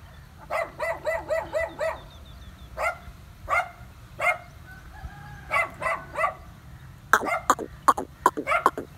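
Ducks quacking: a quick run of about eight quacks just after the start, a few single quacks through the middle, and a dense flurry of quacks near the end.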